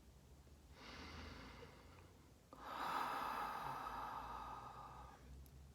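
A person breathing audibly: a soft breath in, then a longer, louder breathy exhale lasting about three seconds.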